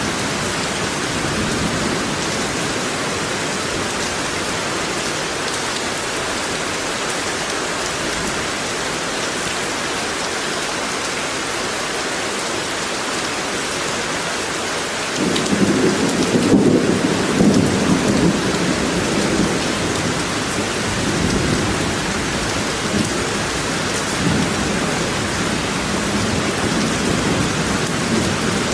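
Steady rain. About halfway through, a low rumble of thunder rolls in and keeps going, loudest a second or two after it starts.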